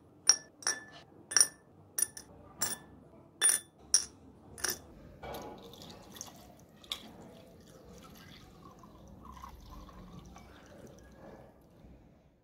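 Small rusty metal parts dropped one at a time into a glass jar, about nine ringing clinks, then vinegar poured in over them for the rust-removing soak, a steady liquid filling sound from about five seconds in.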